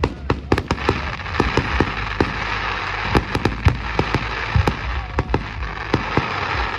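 Fireworks going off: many irregular sharp bangs and pops, with a dense crackling hiss of crackle shells running through most of it.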